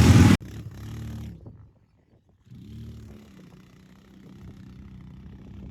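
Quad ATV engine running at low volume, its pitch rising and falling. The sound cuts out for a moment about a second and a half in, then returns as a steadier engine note.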